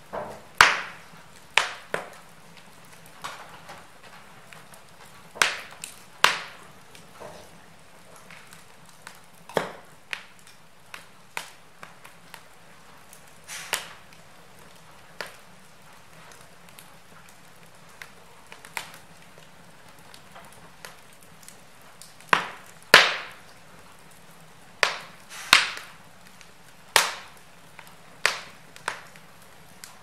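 Wood logs burning in a fireplace, crackling with irregular sharp pops and snaps over a low steady background. A cluster of louder snaps comes in the last third.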